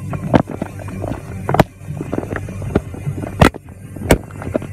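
A phone being handled, fingers knocking and rubbing right against its microphone: irregular sharp knocks and scrapes, the loudest about a second and a half in and again near the end, over a low steady hum.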